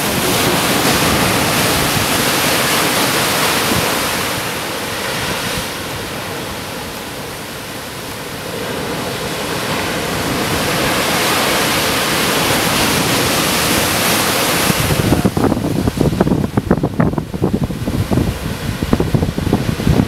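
Ocean surf crashing and rushing against a lava-rock shoreline where lava is entering the sea, in waves that swell and ease. For the last few seconds it turns choppy and gusty, with wind buffeting the microphone.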